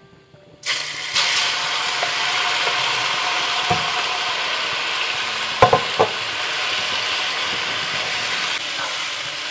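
Seasoned chicken pieces going into hot shallot oil in a pan: loud frying sizzle starts suddenly about half a second in and keeps on, with a few sharp clicks near the middle.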